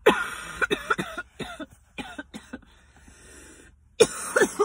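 A woman coughing hard in repeated fits after a hit of smoke from a glass bubbler pipe. There are several harsh coughs in quick succession, a short pause, then another loud burst about four seconds in.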